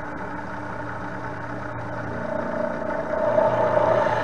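Machine spindle running with a countersink, its cutting end wrapped in folded paper tissue, being fed into a hole; the sound grows louder about two seconds in as the cutting edge works through the paper into the metal. The paper is there to stop the countersink chattering and leaving a rough finish.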